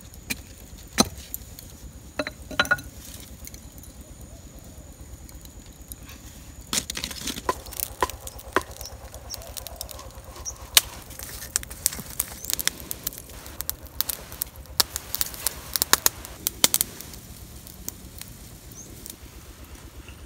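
Scattered sharp clicks and taps of hands handling sticks and a large fish, with light rustling. The taps come thickest through the middle.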